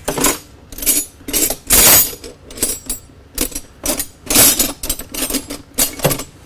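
Irregular metallic clanking and clinking, about a dozen sharp knocks and short rattles over several seconds, as metal parts and tools are handled and shifted while setting up work on a milling machine.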